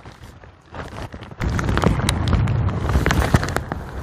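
Wind buffeting the microphone on a boat's open deck: quieter at first, then from about a second and a half in a loud, rough rumble full of crackles.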